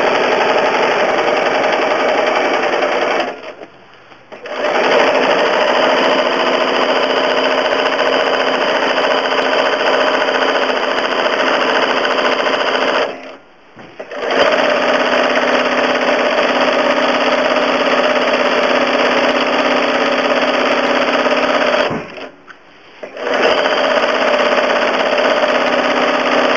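Home sewing machine running fast in straight stitch with a darning foot, a steady dense mechanical running sound. It stops briefly three times, about 3 s, 13 s and 22 s in, and starts again each time.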